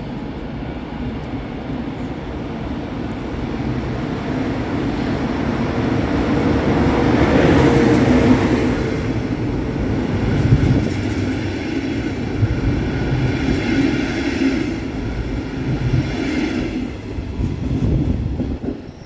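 Passenger train running along a platform: a DB class 111 electric locomotive comes past, then red double-deck coaches roll by. The rumble builds to its loudest about seven to eight seconds in and stays loud. A thin high squeal joins in the second half, and the sound falls away near the end.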